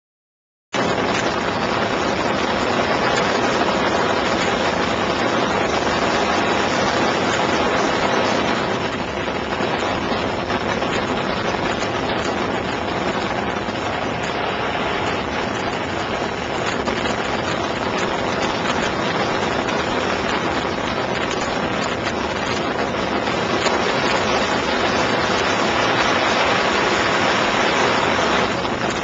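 Piper Super Cub floatplane's piston engine and propeller running steadily in flight, a loud, even drone that cuts in abruptly about a second in.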